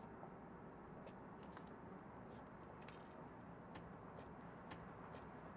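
Faint, steady high-pitched insect trill over quiet background hiss, with a few faint ticks.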